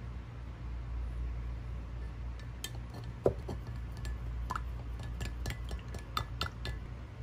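Dishes, glassware and utensils clinking and knocking together: a run of light clinks, several with a short ring, from about two and a half seconds in, with one louder knock a little after three seconds, over a steady low hum.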